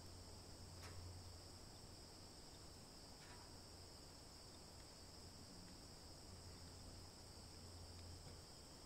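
Near silence: crickets calling faintly and steadily, over a faint low hum, with two soft ticks about one and three seconds in.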